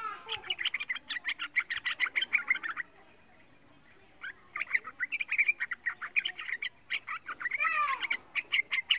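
Young yellow-vented bulbul singing: two fast runs of short chirping notes, about ten a second, separated by a pause of a second or so, with a swooping note near the end.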